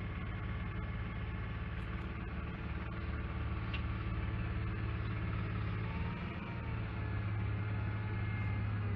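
The engine of a Versatile swather converted into a snowblower, running steadily as the machine creeps forward. It is a low drone with a faint steady whine above it.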